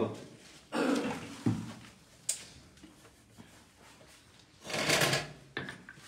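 A few short knocks and clicks of things being handled, and a brief noisy rustle about five seconds in.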